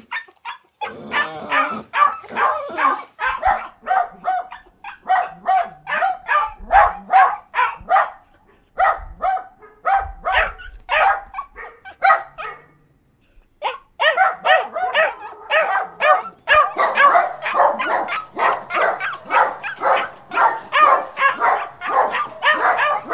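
Dog barking in quick, short barks and yips, about three to four a second, with a pause of about a second a little past halfway before the barking resumes more densely.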